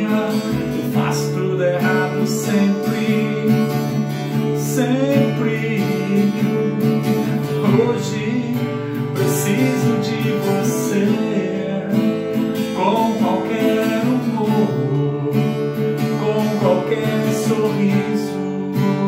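Steel-string acoustic guitar strummed in a steady rhythm, playing the chords of a pop ballad with no lyrics sung.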